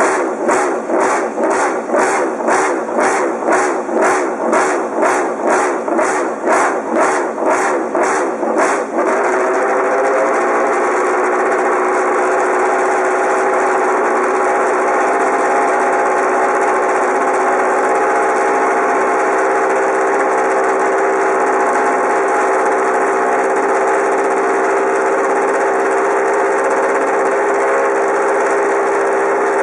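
Repsol Honda MotoGP racing motorcycle engine being revved in short throttle blips about twice a second. About nine seconds in it settles to a steady high idle.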